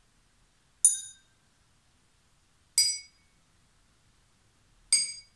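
A teaspoon tapping drinking glasses filled with water to different levels: three single clinks about two seconds apart, each ringing briefly before fading.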